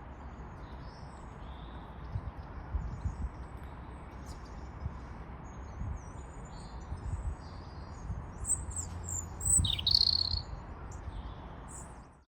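Small birds singing and chirping, with one louder sweeping call about ten seconds in, over a low rumble with scattered low thuds. The sound cuts off suddenly near the end.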